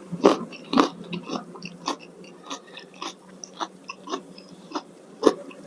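Close-miked chewing of food, a run of wet mouth clicks and smacks about twice a second.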